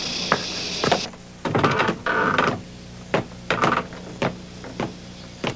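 Footsteps: for about the first second over a steady high hiss, then after a cut slow steps on a wooden plank floor, heard as separate knocks about every half second.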